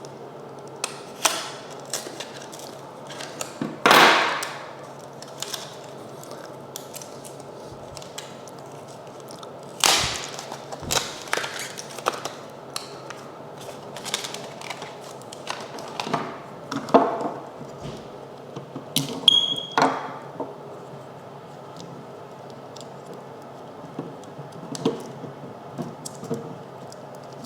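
Scattered clicks, taps and plastic knocks of a new 9-volt lithium battery being handled and snapped into a smoke detector's battery holder, with one short high beep about two-thirds of the way through.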